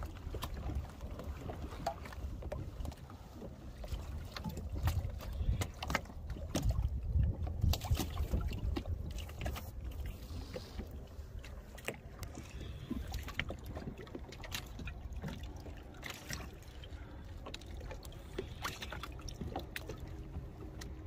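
Wind buffeting the microphone and choppy sea water slapping against a kayak hull, with scattered short clicks and knocks.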